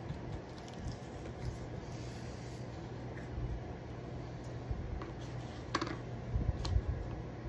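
Soft scratchy rubbing of a paintbrush on the wooden cutting board over a low steady hum, with a few light clicks in the second half.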